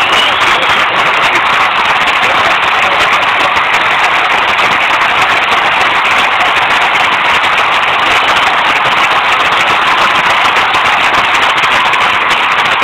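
Large crowd in a packed bullring applauding steadily: a dense, even clatter of many hands clapping.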